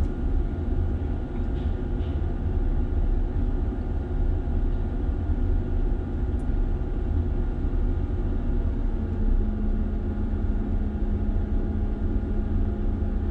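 Liebherr mobile crane's engine and hydraulics running steadily, heard inside the operator's cab as a low rumble with a steady hum. A further low hum joins about nine seconds in and holds.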